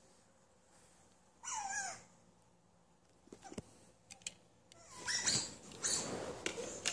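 Recorded otter calls played back: a high squealing call that falls in pitch about a second and a half in, then a run of high squeaks and chirps near the end, with a few handling clicks between.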